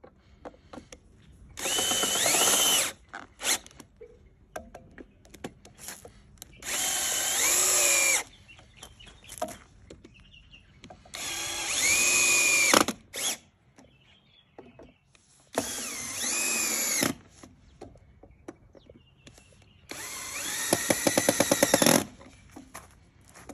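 Cordless drill-driver driving screws through steel hairpin-leg mounting plates into a wooden slab: five short runs of motor whine, each about a second and a half, the whine dipping in pitch during each run. The last run has a rapid, even clicking through it.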